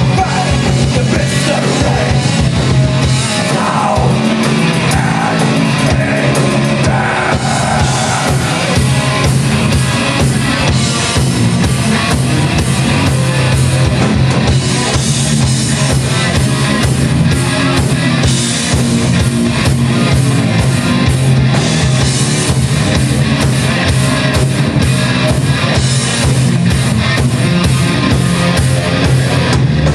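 Heavy metal band playing live: two electric guitars, bass guitar and drum kit, loud and continuous.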